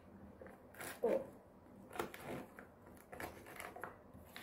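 Soft handling noises: a few small clicks and taps as children work small plastic toys and a tool in slime on a tabletop.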